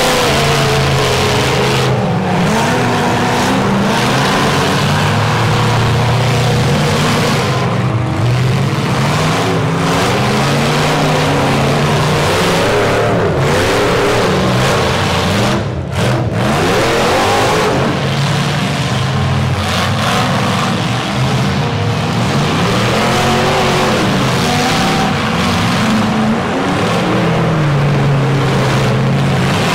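Demolition-derby pickup truck engines revving hard, their pitch climbing and falling over and over as the trucks push and ram one another.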